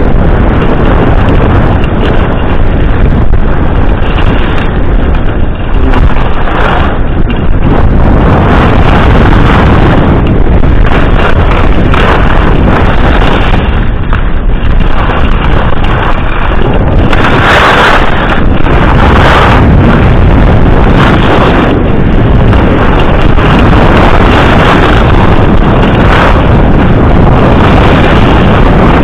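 Loud wind rushing and buffeting over the microphone of a skier's POV camera during a fast downhill run, mixed with the hiss and scrape of skis on packed snow that swells in surges, strongest a little past halfway.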